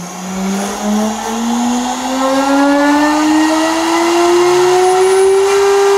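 FoxAlien 1.5 kW air-cooled VFD spindle spinning up toward 24,000 RPM: a whine that rises steadily in pitch and levels off at full speed about five and a half seconds in.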